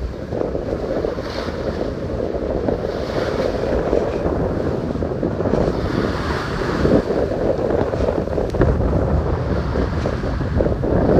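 Sailboat hull driving through open-sea waves, water rushing and splashing along its side, with wind buffeting the microphone. The low wind rumble grows heavier near the end.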